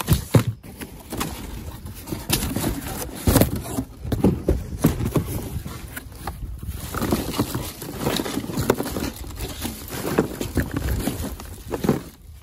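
Cardboard boxes and plastic packaging being handled: irregular knocks, thumps and crinkling as a gloved hand rummages through trash.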